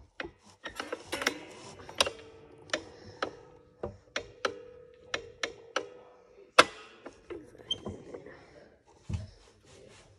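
Irregular sharp metal clicks and clinks from hands working the bolts and hardware of a John Deere tractor seat base, the loudest click about two-thirds of the way in.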